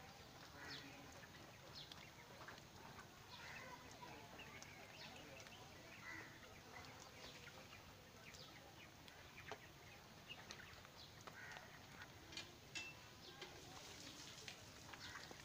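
A flock of broiler chickens, faint: many short scattered chirps and clucks.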